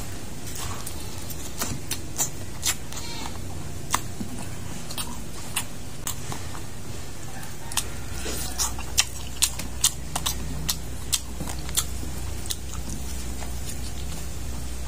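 A man chewing and sucking on pieces of cooked porcupine fish eaten by hand, with many sharp lip smacks and clicks, densest about nine to eleven seconds in, over a steady low hum.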